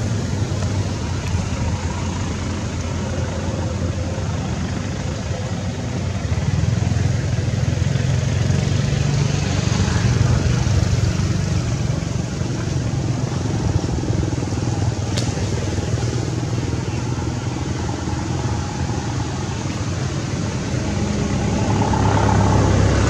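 Steady low rumble of a running motor-vehicle engine, such as passing motorcycle traffic, continuing without a break and swelling slightly near the end.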